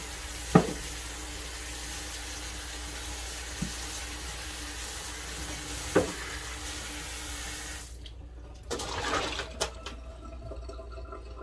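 Kitchen faucet running into a stainless steel sink while raw chicken pieces are rinsed under it by hand, with two sharp knocks along the way. The water stops about eight seconds in, followed by a few brief handling rustles and clicks.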